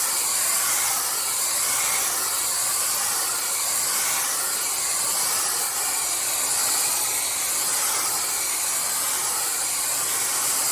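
Hair dryer blowing steadily, a loud even rushing hiss, heating a rate-of-rise heat detector to set it off.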